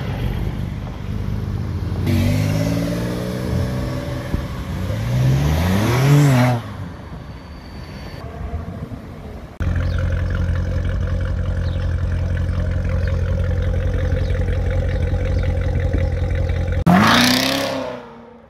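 Car engines from a street at a rally: first an engine revving with its pitch climbing for a few seconds. Then a Chevrolet Corvette C7's V8 idles steadily, and near the end it revs hard and accelerates away, the sound fading off.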